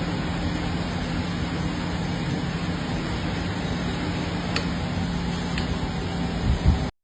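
Steady machine noise with a constant low hum and a few light clicks, cutting off suddenly near the end.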